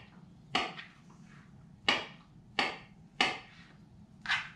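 Kitchen knife slicing banana on a plastic cutting board: five sharp knocks of the blade striking the board, roughly one a second and unevenly spaced.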